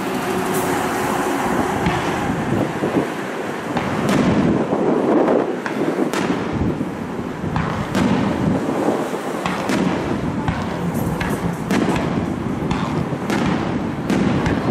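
Aerial firework shells bursting in quick succession, a run of sharp bangs and crackles over a continuous din, the bangs coming thicker near the end.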